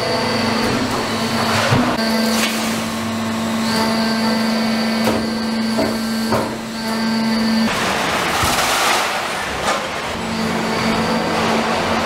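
G.P.S. 30-3C hydraulic scrap-metal baler running, with a steady low hum and a faint high whine. Metal clanks and knocks sound several times. About two-thirds through, the hum stops during a loud rushing hiss and then comes back near the end.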